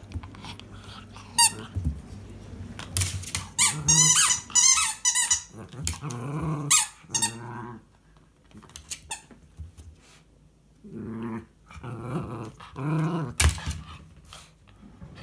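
Miniature schnauzer squeezing a rubber squeaky ball in its mouth, squeaking it repeatedly in the first half, then growling in short bouts while demanding the ball be thrown.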